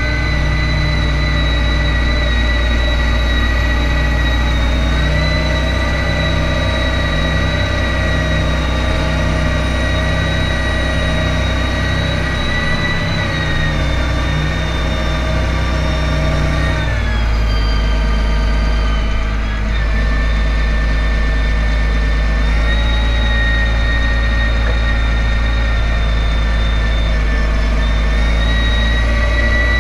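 Large John Deere tractor's six-cylinder diesel engine running steadily while the tractor drives, heard up close from the hood. About halfway through the engine note drops, then climbs back up near the end.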